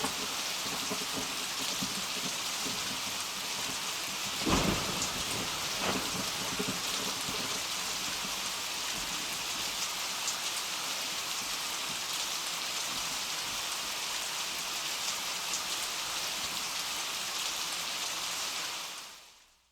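Heavy downpour hissing steadily, with a sharp thunder crack about four and a half seconds in and a weaker rumble near six seconds; the rain fades out at the end.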